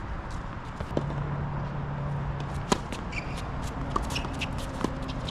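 Tennis ball bouncing a few times on a hard court, about a second apart, with shoes scuffing on the court surface.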